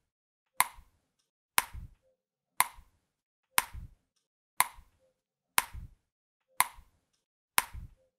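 Pop sound effect: a sharp click with a short low thud, repeated evenly about once a second, eight times in all.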